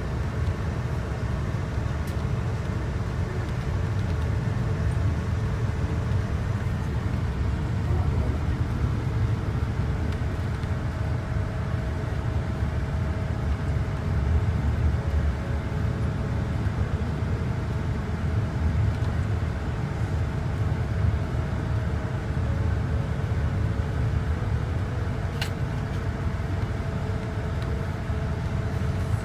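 Steady road noise heard from inside a moving car: a low rumble of engine and tyres, with a faint steady hum above it.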